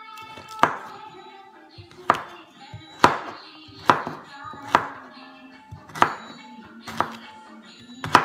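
Chef's knife chopping vegetables on a wooden chopping board: eight sharp chops, roughly one a second, not quite evenly spaced.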